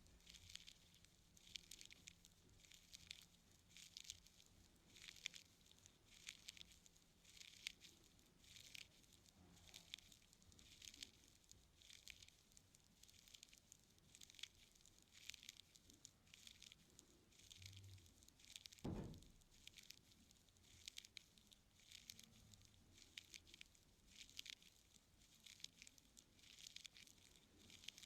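Ear-cleaning tool scratching and rustling inside an ear canal close to the microphone: soft, irregular scraping strokes one after another, with a single low thump about nineteen seconds in.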